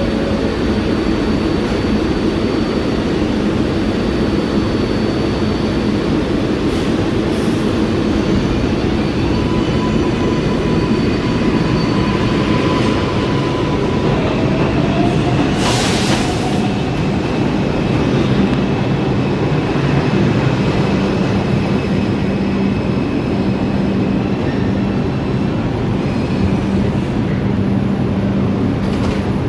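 New York City Subway R142-series train running in the station with a steady loud rumble and faint whines. A short hiss comes about sixteen seconds in, followed by a steady hum.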